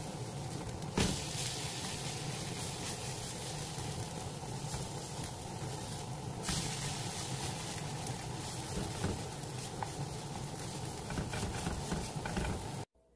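Tofu patties sizzling in oil in a nonstick frying pan, over a steady low hum. A wooden spatula knocks against the pan about a second in and again around six seconds in as the patties are flipped.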